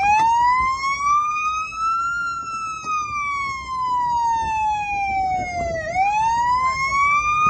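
Police car siren sounding a slow wail. Its pitch rises for about two seconds, falls slowly for nearly four, then rises again near the end.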